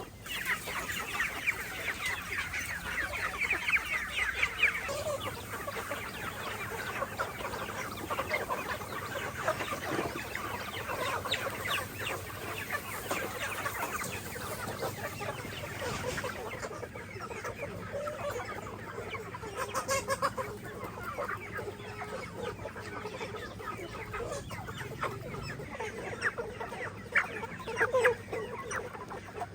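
A flock of free-range chickens clucking continuously, many birds calling over one another.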